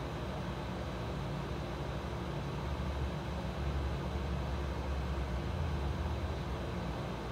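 Steady low rumble with an even hiss, swelling slightly a few seconds in: constant background noise from no visible source.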